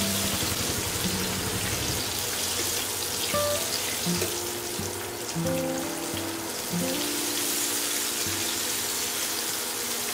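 Gram-flour-battered tomato slices deep-frying in hot oil: a steady sizzle throughout, with background music playing over it.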